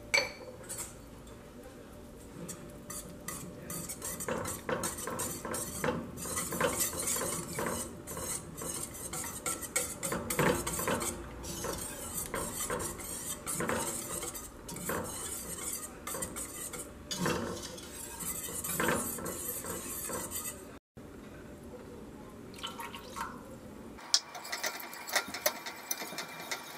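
Wire whisk stirring thick yogurt and cornstarch in a stainless steel pot, its metal wires scraping and clinking against the pot in quick, irregular strokes. The whisking stops briefly about twenty seconds in.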